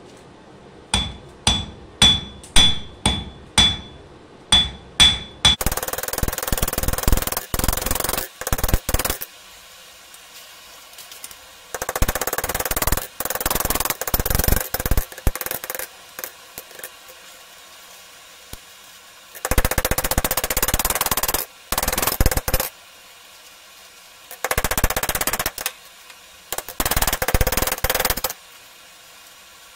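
Blacksmith's hand hammer striking a red-hot steel rod on an anvil to flatten its end. First comes a string of about eight single blows with a clear anvil ring, then rapid hammering in several bursts with short pauses between.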